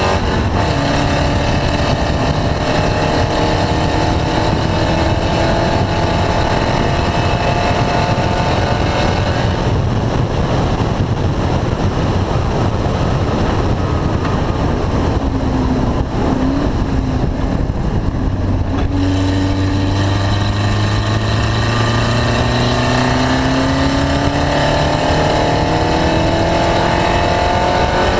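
Race car engine running hard on track: it pulls up in pitch under acceleration for several seconds, drops back in a noisier stretch mid-way, then climbs again near the end.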